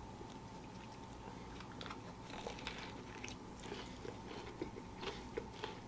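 Close-up eating sounds of a person biting into a fried chicken sandwich and chewing, with many small faint crunches from the crispy breaded coating.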